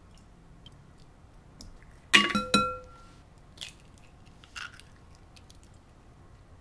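An egg knocked twice against the rim of a glass mixing bowl, the bowl ringing briefly after each knock, followed by two soft crackles as the shell is pulled apart.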